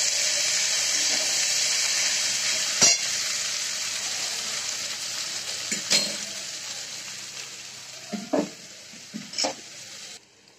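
Half-boiled rice sizzling in hot oil in a steel kadai as it is turned with a spatula, with the spatula knocking against the pan a few times. The sizzle fades gradually and cuts off near the end.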